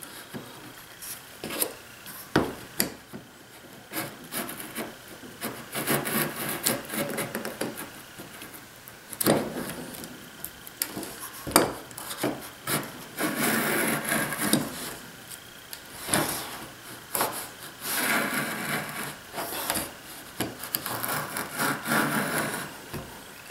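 Hand router plane's blade shaving plywood in repeated scraping strokes along a stopped dado, with sharp knocks between strokes as the plane is moved and repositioned.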